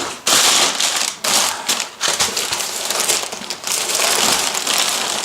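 Shipping packaging being pulled open and handled by hand: loud, irregular crinkling and rustling in uneven surges.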